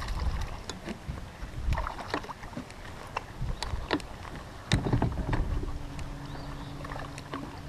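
Small fishing boat on the water: scattered knocks and clicks against the hull over a low rumble, with a steady low hum coming in about five and a half seconds in.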